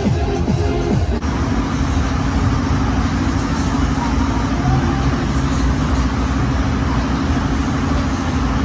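Techno-style dance music cuts off suddenly about a second in. A steady mechanical hum follows, a held low drone over rumbling noise, with faint voices.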